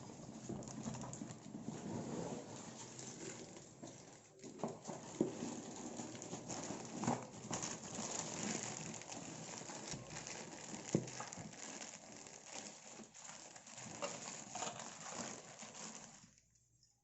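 Rustling and scattered light clicks and knocks as a mixer grinder's jars, lids and packaging are handled and unpacked, fading out near the end.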